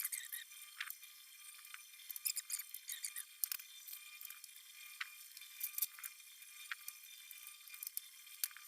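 Faint, irregular light metal clicks and clinks with short squeaks, as of steel shelving parts being handled and slotted together. The sound is thin and tinny, with no low end at all.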